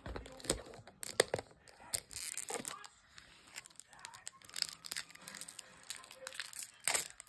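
Foil wrapper of a trading-card booster pack crinkling and tearing as it is pulled open by hand, in a string of irregular sharp crackles.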